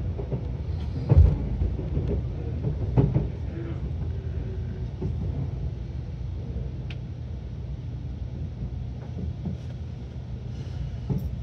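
Running noise of a Nankai 50000 series Rapi:t electric limited express train heard from inside the passenger cabin: a steady low rumble, with two heavier thumps about one and three seconds in.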